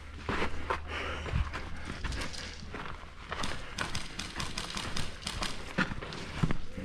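Footsteps of a person running over hard ground: an irregular series of thuds and taps.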